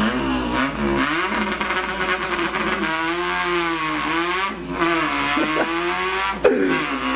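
A man imitating an import car's engine with his mouth: a continuous vocal revving whose pitch climbs and drops as if through gear changes, with short breaks for breath near the middle and near the end.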